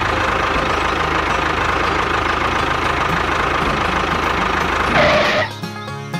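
Tractor engine running steadily with a regular low pulse, a brief louder sound about five seconds in, then it cuts off.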